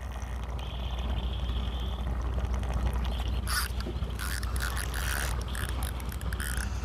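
Fishing reel ratcheting and clicking as the line is worked against a hooked fish on a hard-bent rod, the clicks starting about halfway through, over a steady low hum.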